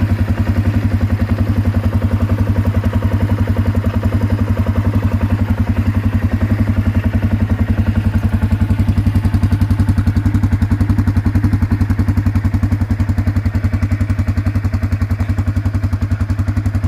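Can-Am Outlander 400 ATV's single-cylinder engine idling steadily, with an even, rapid low-pitched pulse.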